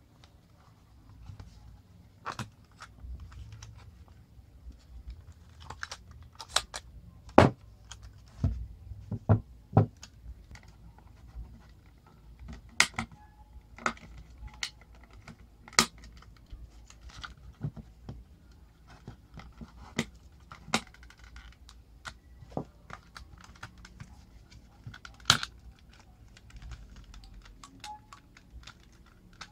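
The plastic case of an Aiwa HS-PS100 portable cassette player being pried apart by hand: irregular plastic clicks and snaps as the case halves and their clips come apart, a few sharp snaps louder than the rest, with handling rustle between.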